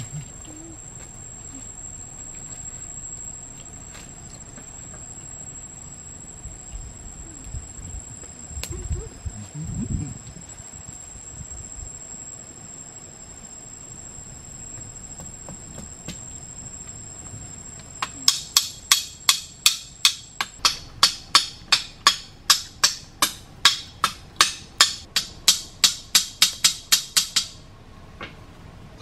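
Fast, even chopping knocks of a blade on wood, about three to four a second, starting about two-thirds of the way in and stopping shortly before the end. A steady high insect drone sounds over the first part and fades out around the time the chopping begins.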